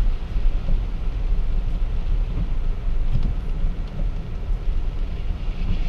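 Road noise inside a Tesla's cabin on a wet highway: a steady low rumble of tyres on wet pavement, with rain on the car and no engine sound.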